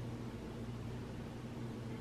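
Quiet room tone: a steady low hum with an even hiss.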